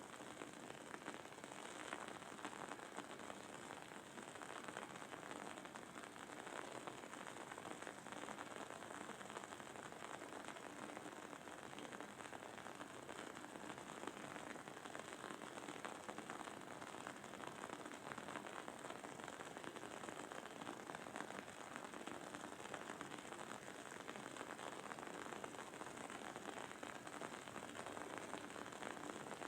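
Wood-wick candle burning with a steady, close-packed crackle of many small pops.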